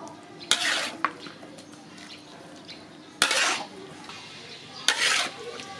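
Metal spoon scraping against a pan, three short scrapes with a sharp start each and a single click between the first two.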